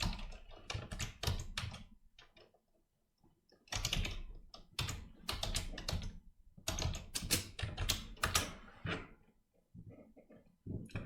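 Typing on a computer keyboard in four quick bursts of key clicks, with short pauses between them.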